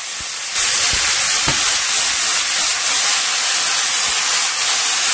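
Water spinach stir-frying over high heat in hot oil and garlic: a loud, steady sizzling hiss that jumps louder about half a second in, with a few soft knocks.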